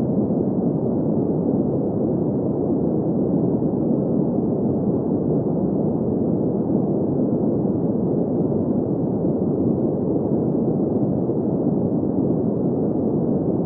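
Steady synthetic sleep noise, deep and muffled with no highs, holding an even level with no change.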